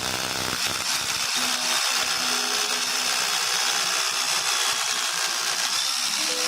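Hitachi DH24PG 730 W corded rotary hammer drill running steadily.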